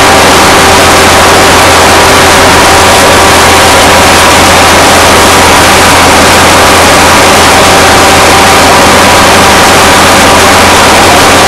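Newly drilled hot-water well blowing out steam and hot water at the rig: a steady, very loud rushing hiss that overloads the recording.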